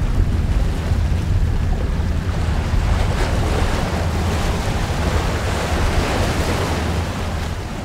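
Wind buffeting the microphone over churning harbour water and boat wakes: a steady rushing noise with a heavy low rumble. It fades out near the end.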